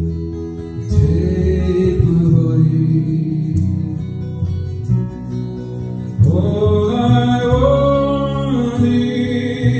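Acoustic guitar played with a man singing into a microphone. The voice is loudest from about six seconds in.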